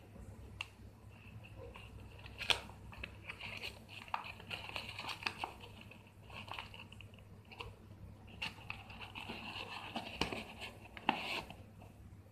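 Stiff paper and card rustling and crinkling, with scattered sharp taps, as the folded flaps of a handmade paper explosion box are pressed shut and a card lid is fitted over it. A low steady hum lies underneath.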